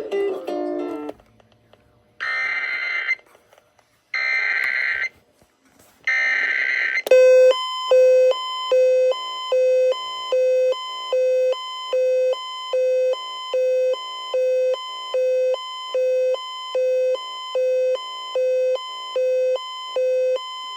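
Emergency Alert System alert tones: three one-second bursts of screeching SAME header data, then a long pulsing electronic beep of about 1.4 beeps a second as the attention signal.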